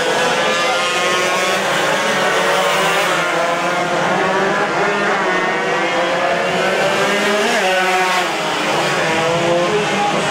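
Several Yamaha RX-King two-stroke racing motorcycles at full throttle, their engine notes overlapping and climbing and dropping in pitch as the riders rev through the gears and back off for corners.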